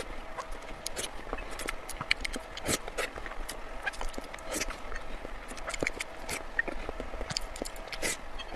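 Someone eating, with irregular crunchy bites and wet chewing clicks coming several times a second.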